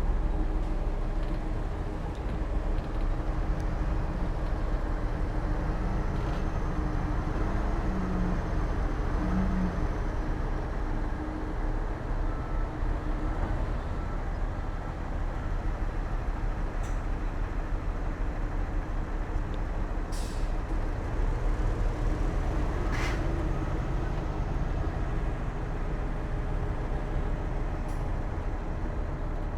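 Heavy diesel earthmoving machinery, a D60P bulldozer and dump trucks, running steadily under work, with a couple of short, high, hissing sounds about two-thirds of the way through.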